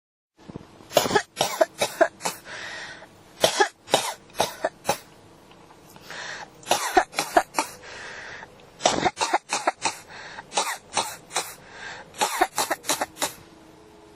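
A person coughing in repeated fits: about six runs of four or five quick, sharp coughs, each run followed by a drawn breath in before the next.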